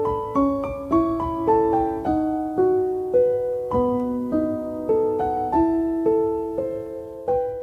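Background piano music, a gentle melody of single notes struck about twice a second, each note fading as it rings; the last note rings out at the end.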